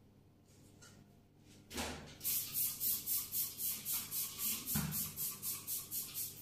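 Trigger spray bottle of bathroom cleaner squeezed over and over, a quick even run of short hissy squirts at about four or five a second, with a couple of low knocks.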